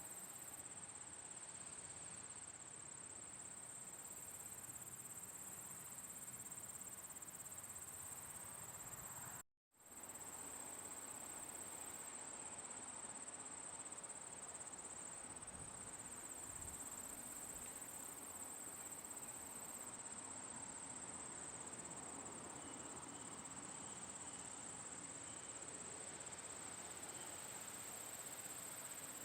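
Summer insect chorus, crickets trilling in a steady high-pitched drone over a faint background hiss. The sound cuts out completely for a split second about nine seconds in, then resumes unchanged.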